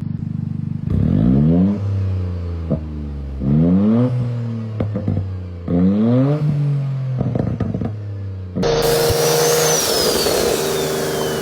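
Car engine idling and revved three times, each rev rising quickly and falling back to idle. About two-thirds of the way in the sound cuts suddenly to a louder, hissier engine sound with a high whistle that rises and then slowly falls.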